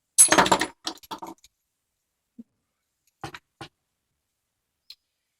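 Small metal padlock parts clicking and clattering in the hands as the picked cylinder core is worked out of the lock body: a loud cluster of clicks near the start, then a few single sharp clicks with silence between.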